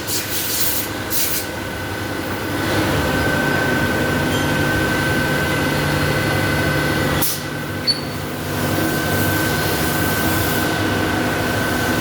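CNC lathe and its autoloader running: a steady machine drone with a held high whine that comes in about three seconds in. There are short hissing bursts near the start, and a brief lull with a single click a little past halfway.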